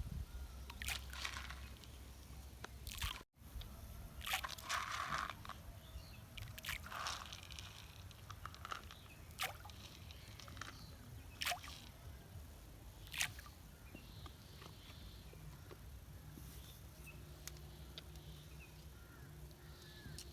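Scattered small splashes and sloshes of shallow water, with sharp clicks and short bursts every second or two.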